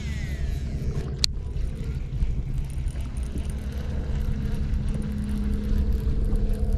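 Boat motor running steadily with a low hum that grows a little louder and higher partway through, and a single sharp click about a second in.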